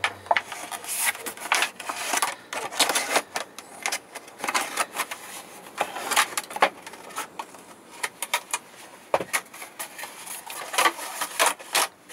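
Scissors snipping through a plastic milk carton, a run of irregular sharp snips with the thin plastic crackling as it is cut and handled.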